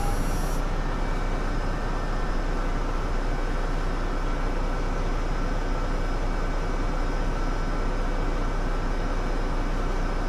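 Mercedes-Benz Citaro C2 city bus running steadily: an even engine and running drone with faint steady whining tones above it.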